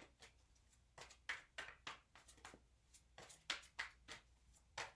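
A deck of tarot cards being shuffled by hand, overhand: faint, irregular soft taps and flicks of cards, two or three a second.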